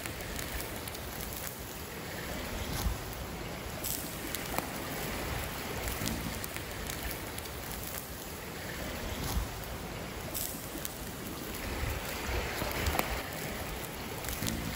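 Steady rushing of a river with wind buffeting the microphone, and a few faint clicks here and there.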